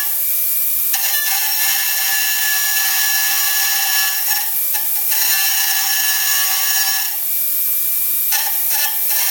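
Robot-held high-speed machining spindle cutting metal on a turbine ring nozzle: a steady high-pitched whine with a rasping cutting noise that drops out briefly a few times as the tool comes off the metal.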